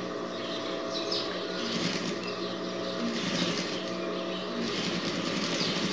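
Industrial sewing machine stitching a seam in knit fabric, running with a steady hum.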